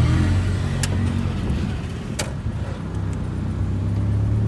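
Car engine and road noise, a steady low hum while driving, with two short sharp clicks.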